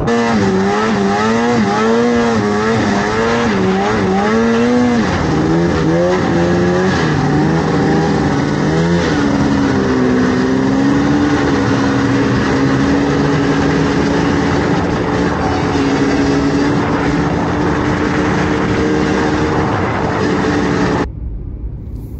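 Vintage snowmobile's two-stroke engine running under throttle, its pitch swinging up and down for the first several seconds, then holding a steady high pitch while cruising across the snow. Near the end it cuts suddenly to the quieter, duller hum of a car driving on a road.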